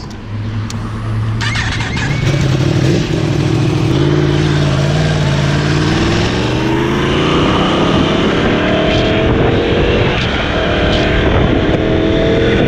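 Yamaha R1 sportbike's inline-four engine pulling away and accelerating, its pitch rising steadily through the middle of the stretch and then holding at cruising speed, with wind rushing over the microphone.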